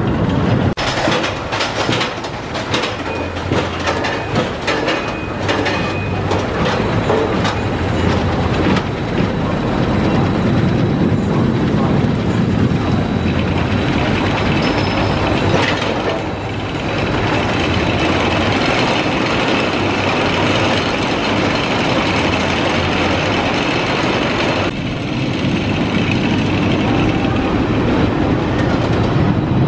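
Rocky Mountain Construction hybrid roller coaster train running on its steel track, a dense clattering of sharp clicks over a rumble for the first several seconds, then a steadier rumbling run.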